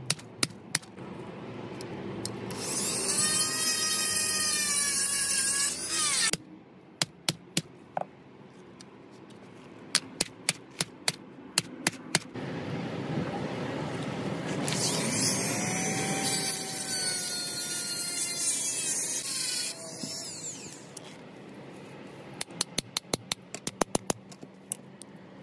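A small power tool runs twice, for about three and a half and then about five seconds, its pitch wavering as it works. Quieter stretches between and after hold runs of sharp clicks.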